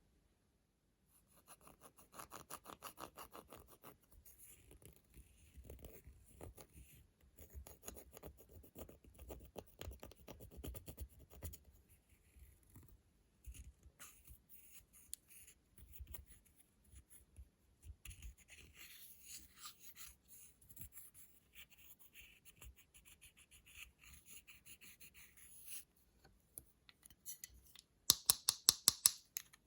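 Slime being worked and stirred, with a dense, fine crackling and popping that comes in bouts with short pauses. A run of louder, sharp clicks comes near the end.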